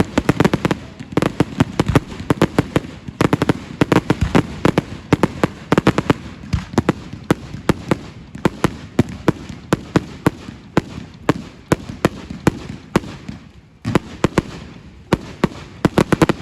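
Fireworks going off: a rapid, irregular string of sharp bangs and crackles, several a second, thinning briefly about two-thirds of the way through before a dense cluster near the end.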